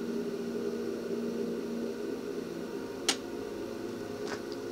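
Cooling fan of a homemade ammo-can LED flashlight, running with a steady hum. A single sharp click comes about three seconds in.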